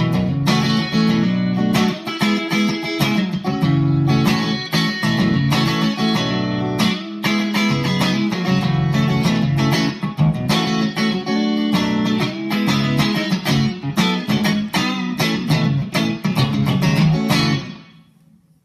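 Fender Stratocaster played through a Bad Cat Bobcat 5R tube combo amp on a clean tone with the master volume almost all the way up: a funky rhythmic groove of short, choppy strummed chords and single notes. The playing stops about a second before the end and rings out.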